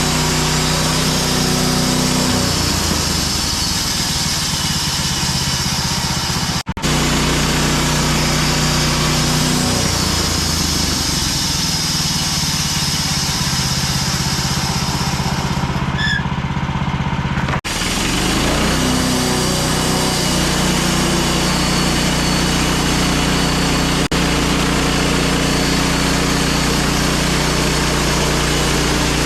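Small petrol engine of a portable sawmill running steadily while the mill cuts through a log, its pitch sagging and recovering several times as the load changes, with two very brief breaks.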